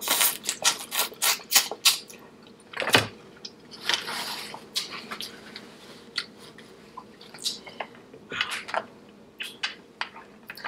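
Close-miked eating of a sauce-covered seafood boil: a quick run of sharp clicks and cracks in the first two seconds, a louder knock about three seconds in, then a wet, liquid stretch and scattered smaller clicks.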